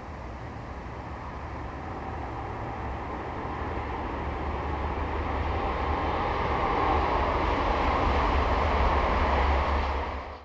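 A Shinkansen 200 series bullet train in 12-car formation approaching at speed and running past, its rushing noise growing steadily louder and loudest near the end before cutting off suddenly.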